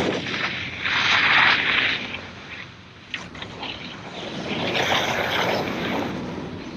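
Snowboard sliding down a snow slope, its base and edge scraping the snow in a steady hiss that swells loudly about a second in and again around five seconds in as the edge digs into turns.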